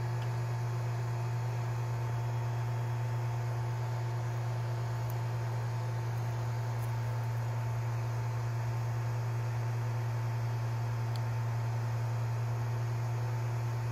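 Creality Ender 3D printer running steadily as it extrudes filament through the heated hot end: an even low hum with fan hiss and a faint steady whine over it.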